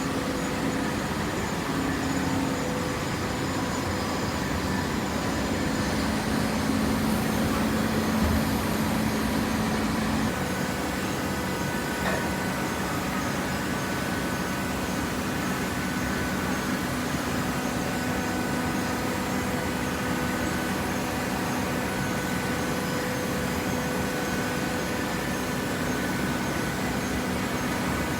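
Hydraulic cardboard baler running: a steady motor and pump hum with held tones, whose pitch shifts slightly about ten seconds in.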